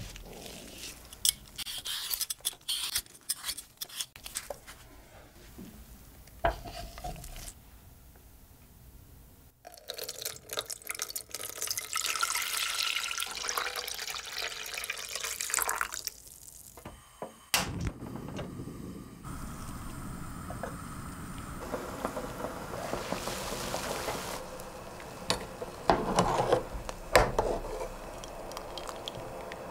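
Scattered clicks and scrapes of kitchen handling. Then water is poured from a glass jug into an aluminium saucepan holding a peeled potato, with a faint rising tone as the pan fills. After a sharp click, water boils and bubbles in the saucepan on a gas burner, louder near the end.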